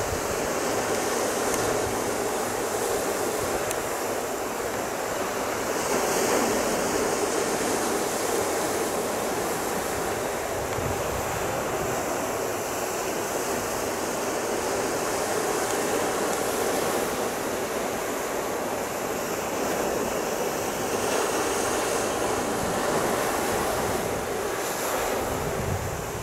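Sea surf breaking and washing over a rocky shore and concrete breakwater blocks, a steady rush that swells and eases gently every few seconds, with some wind on the microphone.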